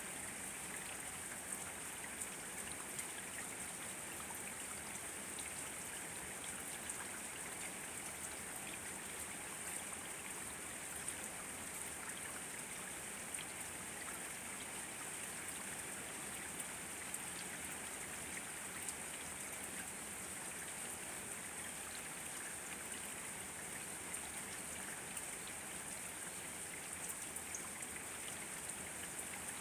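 Steady rain falling, an even hiss with many small drops ticking and pattering throughout.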